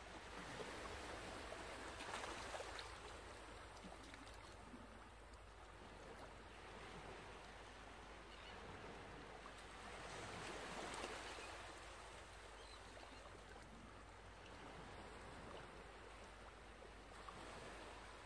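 Near silence: faint steady hiss of room tone, swelling softly twice.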